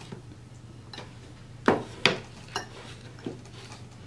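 A metal fork clinking against a dinner plate: a few sharp clinks, the two loudest in quick succession a little under two seconds in, then two fainter ones.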